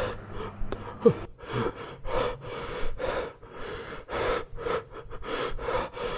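A person breathing hard in quick, rhythmic gasps, about two breaths a second.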